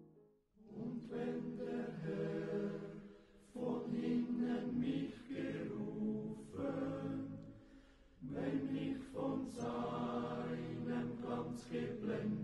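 A choir singing a slow German hymn a cappella, in long sustained phrases with brief breaks between them.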